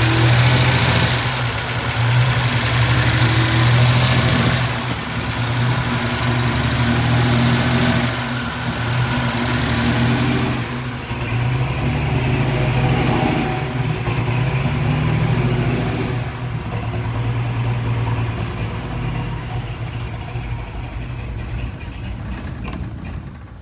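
Vehicle engine idling, its level swelling and easing about every two seconds, with a strong high hiss over it that thins out about halfway through. The owner suspects a vacuum leak.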